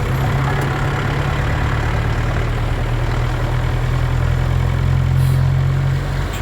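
Truck engine running with a steady low rumble, the note easing off about six seconds in.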